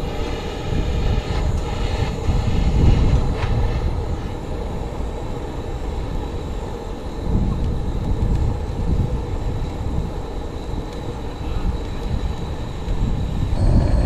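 Lighter-gas jet torch (Campvil Firebat stick torch) firing its flame steadily onto firewood to light it, a continuous rushing noise that swells and eases.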